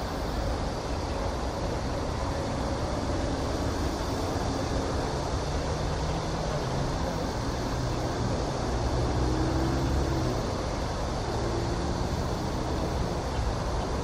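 Steady outdoor background noise with a strong low rumble, with a faint low drone coming and going in the second half.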